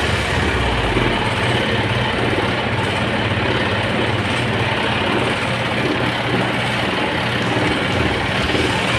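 Electric fan motor running steadily, spinning a plastic tray fitted in place of its blade: an even whir with a low hum.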